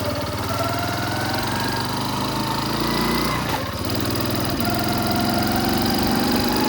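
Engine of a small vehicle running under way, its pitch slowly rising, with a brief drop about three and a half seconds in, like a gear change, before it picks up again.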